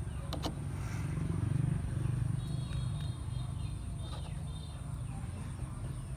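Outdoor street background noise: a steady low rumble, with a couple of sharp clicks about half a second in and a few faint high chirps in the middle.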